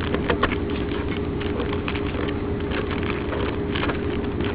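Cobra 29 LX LE CB radio receiving channel static: a steady hiss with irregular crackles, over a steady hum.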